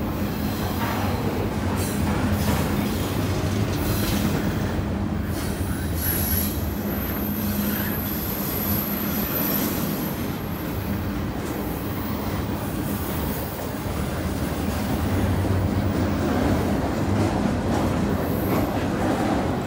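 Double-stack intermodal freight cars of a CN train rolling past on curved track: a steady rumble of wheels on rail. A thin, high wheel squeal comes in about six seconds in and fades out around ten seconds, and returns briefly near the end.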